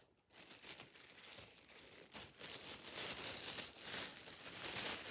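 Packaging being handled and crinkled, an irregular rustling that starts a moment in and grows a little louder toward the end.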